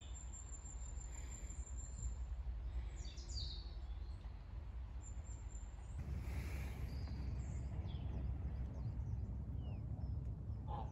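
Outdoor pond ambience: a steady low rumble with faint, scattered small-bird chirps now and then.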